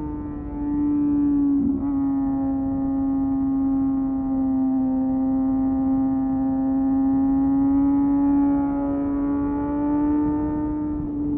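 Kawasaki ZX-6R's 636 cc inline-four engine holding steady high revs, with a steady pitch that sags slightly about two seconds in and climbs gently near the end.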